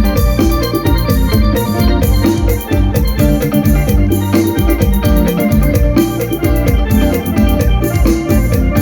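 Lam sing band playing live: an electronic keyboard with an organ sound carries the tune over bass and a steady drum beat, with no singing.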